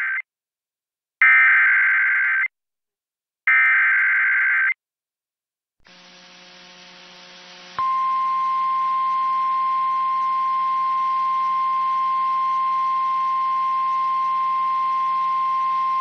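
Emergency Alert System SAME header data bursts, screechy digital squawks: the tail of one burst, then two more, each a little over a second long with short silences between. After a faint hiss, a single steady 1050 Hz weather-radio attention tone starts about eight seconds in and holds.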